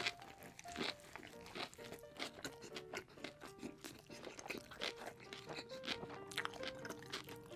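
Close-miked eating: a crunchy bite into a sandwich roll, then repeated crackly chewing and mouth sounds. A soft lo-fi music track with short piano-like notes plays underneath.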